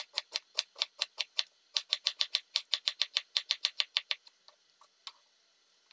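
Large kitchen knife slicing a banana blossom against a wooden cutting board: quick, even chops about five a second, with a short break about a second and a half in, thinning to a few scattered taps after about four seconds.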